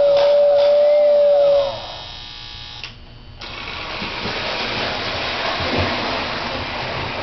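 Lionel 2466W tender's motor-driven whistle sounding one steady tone, which cuts off about two seconds in. Then the 1952 Lionel 675 O gauge steam locomotive is heard running, a steady mechanical noise of its motor and wheels on the track.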